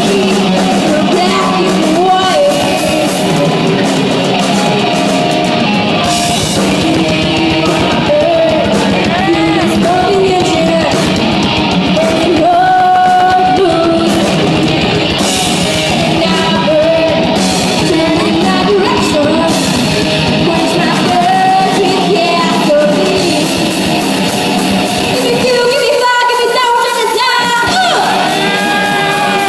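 Live rock band playing loudly: a girl's lead vocal over distorted electric guitars and drums. Near the end the low, heavy part of the band drops away for about two seconds while the voice carries on.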